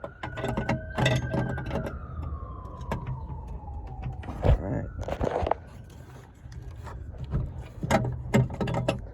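Repeated small plastic clicks and rattles as an LED headlight bulb is twisted and worked into the headlight housing to find its seating position, with a brief scraping rub about halfway through. Behind it, a siren wails faintly, slowly rising and falling.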